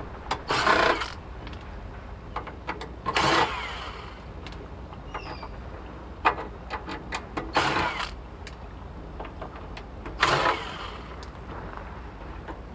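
Cordless electric screwdriver running in four short bursts of about half a second each, backing small Phillips screws out of a steel equipment case. Light clicks and taps of the screws and tool against the metal fall between the bursts.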